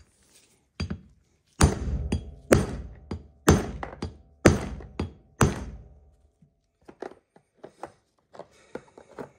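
Hammer driving a new bearing race into a wheel hub: a light tap, then five heavy blows about a second apart, each leaving a short metallic ring, followed by a few small clinks.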